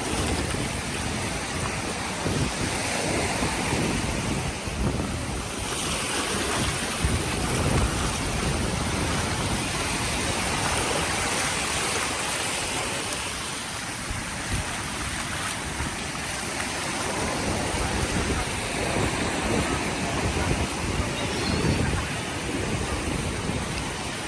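Rough sea surf breaking and washing onto a sand beach in strong wind, a steady rushing noise, with wind buffeting the microphone in low rumbles.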